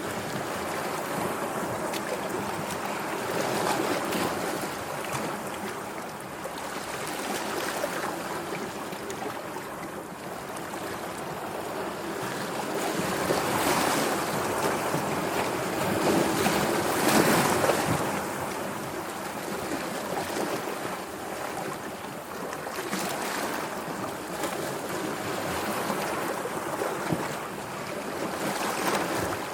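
Sea waves washing onto a shore, a continuous surf that swells and eases every few seconds, with the biggest surges past the middle.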